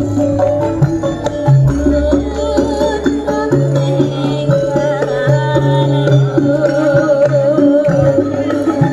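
Music with hand-drum-style percussion, a deep sustained bass line and a wavering melody.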